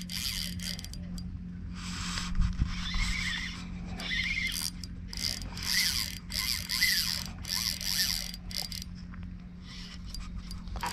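Spinning reel ratcheting and whirring in irregular bursts, with short squeals, as a hooked fish is played. A steady low hum runs underneath.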